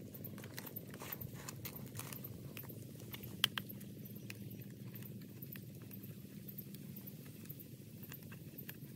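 Irregular light clicks and taps of a knife and a green bamboo tube being handled, with one sharper knock about three and a half seconds in, over a steady low rumble.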